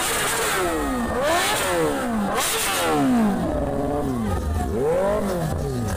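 Sport-bike engines being revved in repeated blips, the pitch rising and falling about once a second, with two short bursts of hiss in the first half.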